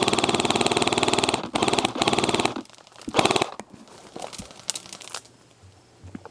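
Airsoft rifle firing two full-auto bursts, a rapid, even stream of shots with a short break about a second and a half in, stopping a little past halfway. Then only quieter rustling and a few faint clicks.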